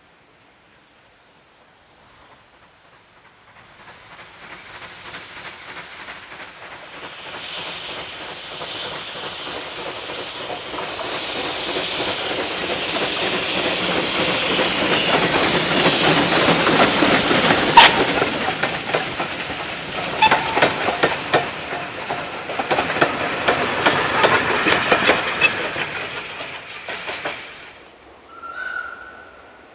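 A small steam locomotive and its train passing: the sound builds from far off to a peak about halfway through, with a sharp click, then several seconds of rhythmic clicking of wheels on the rails before it fades away. A brief high tone sounds just before the end.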